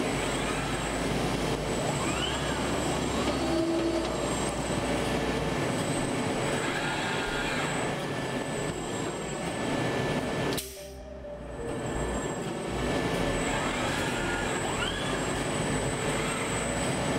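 Steady machine-shop din from a robotic machining cell, CNC lathes and Kuka robot arms running, with a few short rising-and-falling whines. The noise drops away for about a second just past the middle.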